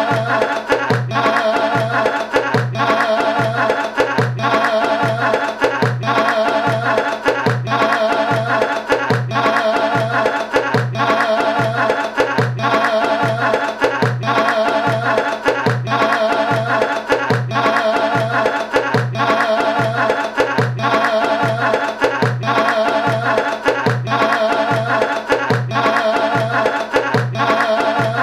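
Music in a folk or Middle Eastern style: a steady, evenly repeating low drum beat under a wavering melody, looping over and over.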